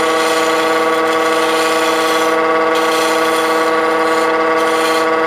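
Wood lathe running with a steady, tonal hum while a gouge cuts the spinning pen blank, the cutting hiss dropping out briefly twice as the tool is eased off.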